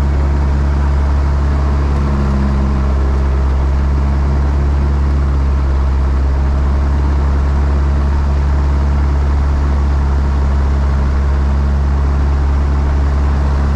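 Piper light aircraft's piston engine running steadily at low power, a constant deep drone heard from inside the cabin.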